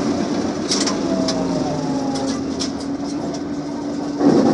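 Inside a moving BTZ-5276-04 trolleybus: a steady hum runs over road and tyre noise, with a few light rattles and clicks from the body. A louder burst comes a little after four seconds in.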